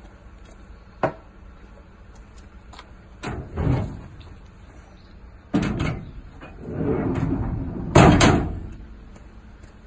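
Aluminium chequer-plate drawers in a van's rear racking being slid along their runners and pushed shut. There is a sharp knock about a second in, two sliding runs, and two loud metal bangs as the drawers close, the second one the loudest.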